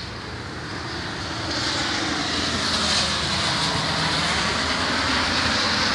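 Steady motor-vehicle noise, an engine drone mixed with a rushing hiss, swelling over the first two seconds and then holding.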